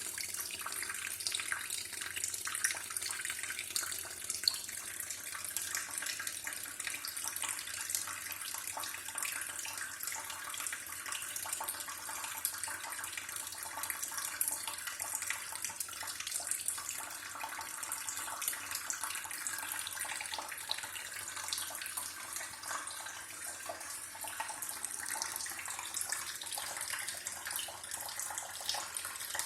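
Water running steadily from a tap, a continuous splashing hiss without let-up.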